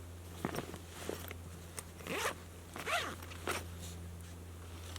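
A zipper pulled in several short strokes, a bag being opened.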